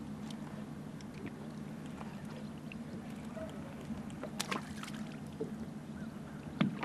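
Steady low hum of a boat motor, with a few sharp clicks about four and a half seconds in.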